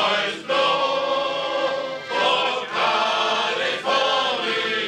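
Male shanty choir singing held chords in phrases with accordion accompaniment, at a rehearsal; the conductor finds the singing limp and unconvincing.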